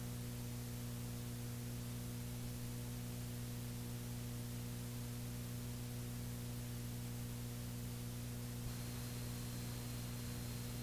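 Cassette tape hiss over a steady low electrical hum, with no music yet. A faint high whine comes in near the end.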